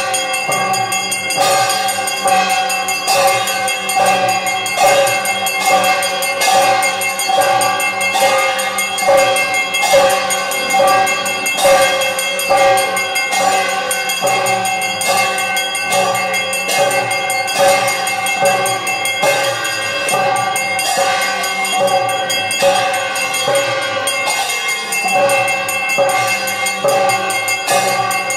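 Brass puja hand bell (ghanta) rung continuously during an aarti. Its clapper strikes in a fast, even rhythm, and the bell's ringing tones carry on between strikes.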